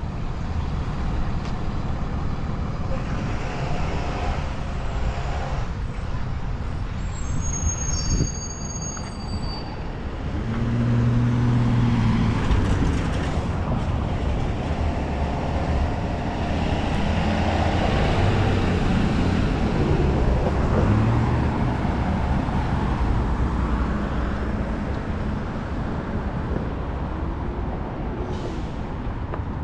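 City street traffic: a steady rumble of vehicles, with a heavier engine passing close and getting louder about ten seconds in. A brief high squeal sounds about eight seconds in.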